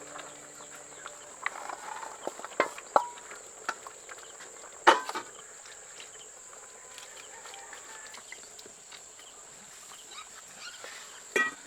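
Insects, crickets or similar, shrilling steadily at a high pitch, with a few scattered sharp knocks and clicks, the loudest about five seconds in and another pair near the end.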